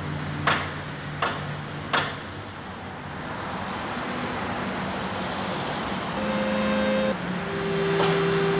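Steady road-traffic noise under quiet background music of held notes that change about six and seven seconds in. Three sharp clicks come in the first two seconds.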